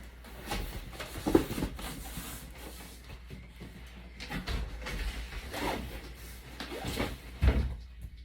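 Cardboard shipping box and packing being handled: irregular rustling and scraping with a few knocks, the loudest about a second in and again near the end.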